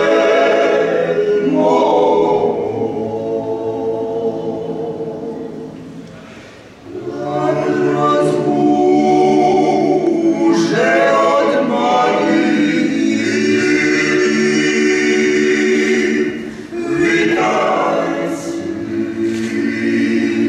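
Klapa singing: four men's voices in unaccompanied close harmony, traditional Dalmatian a cappella. A phrase fades away about six seconds in, a new one starts a second later, and there is another brief break about sixteen seconds in.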